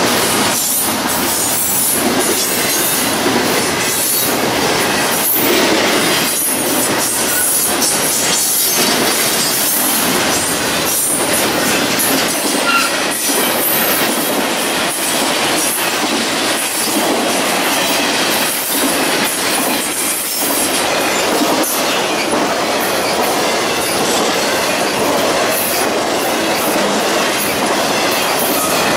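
Freight cars of a passing BNSF intermodal train, double-stack container cars and trailer flatcars, rolling by at close range. The steel wheels on the rails make a steady, loud rumble broken by frequent sharp clicks and knocks.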